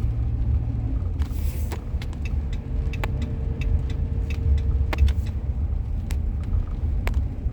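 Car driving, heard from inside the cabin: a steady low road and engine rumble with scattered light clicks and rattles.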